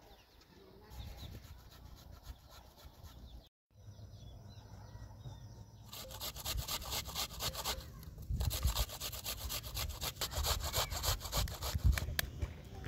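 A spoon scraping and stirring a thick mashed-potato mixture in a glass bowl: quick rubbing strokes that start about halfway through, grow louder, and stop just before the end.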